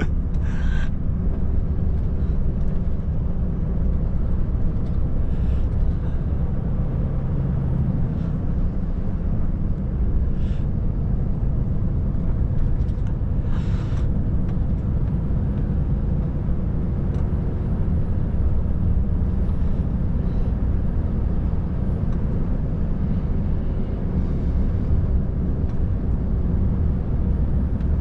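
Volvo FH540 truck's six-cylinder diesel running steadily under way, a constant low drone of engine and road noise, with a few short hisses scattered through it.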